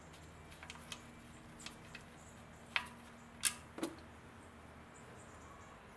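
A few faint, scattered clicks and taps as a car's oil drain plug is spun out by hand and pulled free of the oil pan, the sharpest about three seconds in, followed shortly by a duller knock.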